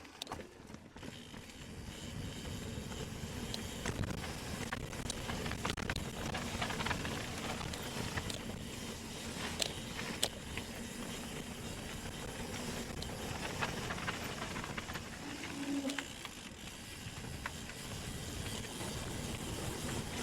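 Specialized Turbo Kenevo SL 2 electric mountain bike ridden over a forest trail: a steady rumble of tyres on dirt with rattling from the bike and a few sharp knocks.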